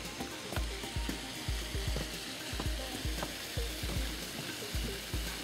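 Handling and wind noise on a handheld camera's microphone: deep thuds about twice a second over a steady crackling hiss.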